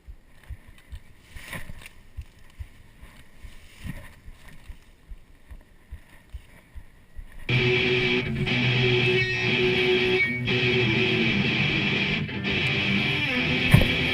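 Faint irregular rumbling and bumping for about half the time, then an electric guitar rock intro starts abruptly and stays loud.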